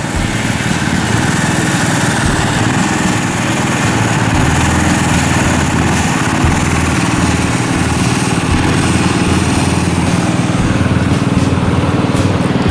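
An engine running steadily and loudly close by, with a constant low hum and no change in speed.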